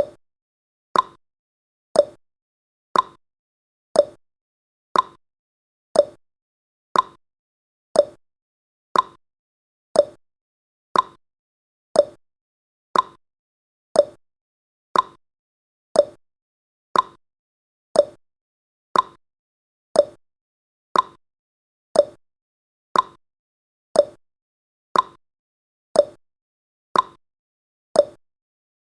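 Clock-tick sound effect of a countdown timer: short, sharp ticks exactly once a second, with silence between them.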